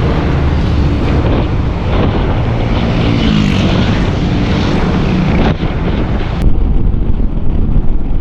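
Wind rushing over the helmet microphone with the engine and road noise of a Yamaha XMAX scooter under way. About six seconds in, the high part of the hiss drops away abruptly.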